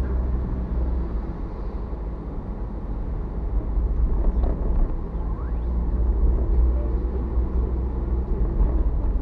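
Steady engine and road rumble heard inside a moving car, with tyre noise from a wet road surface, getting a little louder about four seconds in.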